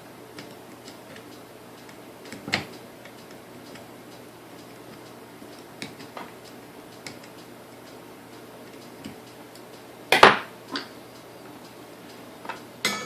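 Small metal parts clicking and knocking as the gears and shafts are worked out of a Sunbeam Mixmaster Model 9's gear housing, with a sharp clunk about ten seconds in, the loudest.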